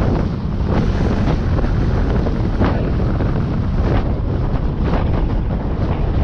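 Wind buffeting the microphone over the steady low rumble of a car driving along a road, with a few brief knocks scattered through.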